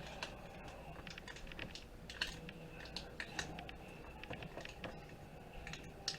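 Scattered light clicks and ticks of small plastic and metal computer parts being handled: ribbon-cable ends and connectors being worked off a screen assembly.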